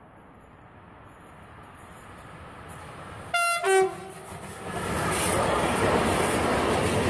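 Electric freight locomotive approaching with a slowly rising rumble, then a short two-tone horn signal about three and a half seconds in, a higher note followed by a lower one. The train of container wagons then passes close by with a loud, steady rolling rumble of wheels on rail.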